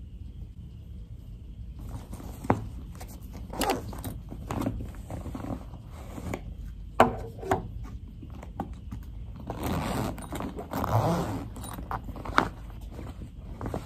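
Someone rummaging in a fabric backpack, from about two seconds in: rustling of the bag and clothing, broken by several light knocks as items are taken out and set down on the desk.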